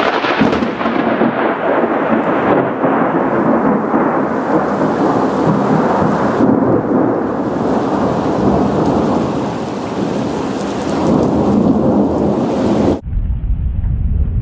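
A loud thunderclap that breaks suddenly and rolls on for about thirteen seconds over heavy rain. Near the end it cuts off abruptly to rain with a low rumble.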